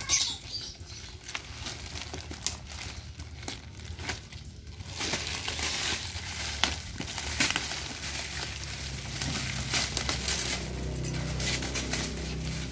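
Plastic packaging crinkling and rustling in irregular handfuls as a plastic bag is pulled off a cardboard parcel. The crinkling gets busier about five seconds in.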